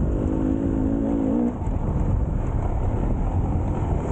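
Enduro motorcycle engine running on the trail, its note wavering with the throttle; about a second and a half in the engine tone drops away, leaving a rough low rumble.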